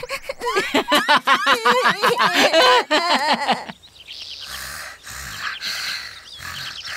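A loud, pitched cartoon sound that wobbles rapidly up and down for the first few seconds and stops abruptly. Then birds chirp softly over a gentle outdoor background.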